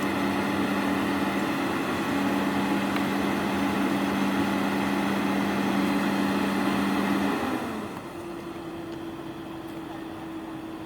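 Excavator's diesel engine and hydraulics running steadily with a held droning tone. About seven and a half seconds in the sound drops and eases, leaving a quieter steady hum as the machine comes off load.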